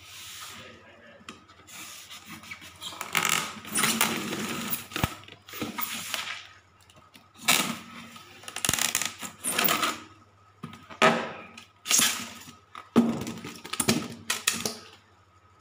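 Knife cutting and scraping along the taped seam of a styrofoam box, in a series of irregular rasping strokes. Near the end the styrofoam lid is pulled off.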